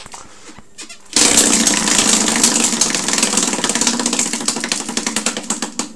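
Tabletop prize wheel spun by hand, its paddle clicking rapidly against the pegs from about a second in, the clicks spreading out as the wheel slows and stopping near the end.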